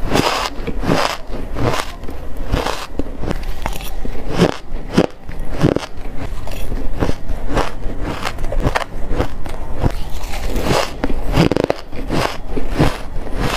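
Shaved ice being bitten and chewed close to the microphone: a steady run of short, squeaky crunches.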